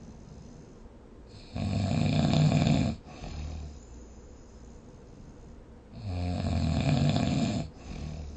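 A person snoring: two loud snores, each about a second and a half long and about four seconds apart, with softer breathing between them.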